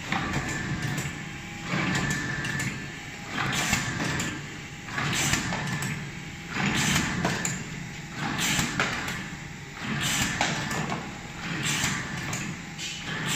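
Automatic cartoning machine running. A noisy swish with clicks repeats about every 1.7 seconds with each machine cycle, over a steady mechanical hum.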